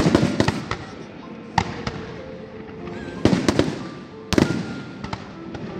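Fireworks display: aerial shells bursting with sharp bangs that come in clusters, the loudest at the start, around three seconds in and a little after four seconds.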